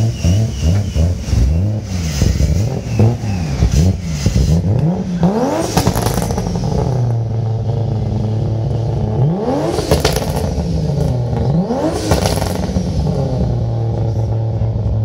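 Lexus drift car's engine blipped rapidly a few times, then revved hard three times, with exhaust pops and crackles as each rev falls away, settling to a steady idle in between.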